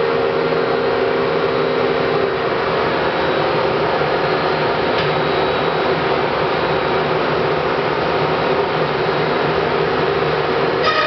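Router spindle on a robot arm running steadily while swarf-cutting plywood, a constant machine noise with a steady hum.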